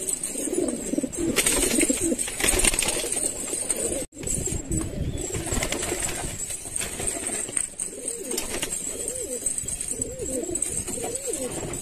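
Several domestic pigeons cooing, with their repeated rising-and-falling coos overlapping.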